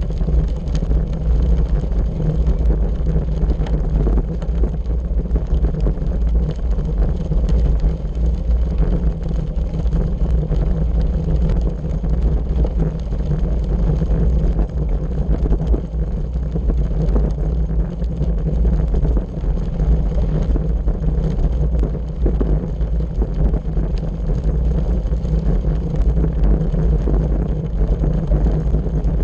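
Wind buffeting the microphone of a camera on a bicycle riding a gravel road, with a steady low rumble and a constant scatter of small clicks and crunches from the tyres on loose gravel and the bike rattling over it.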